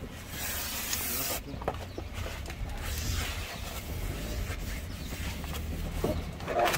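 Aerosol brake cleaner sprayed in a hiss lasting about a second near the start, degreasing a new brake disc, followed by a cloth rubbing and wiping the disc's surface with short scrapes.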